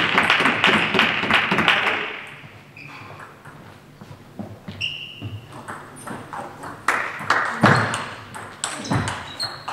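Table tennis balls pinging as they bounce between rallies, a few short high clear pings. In the first two seconds a dense clatter of clapping and voices from the hall fades out, and there is a louder patch of knocks and noise about seven seconds in.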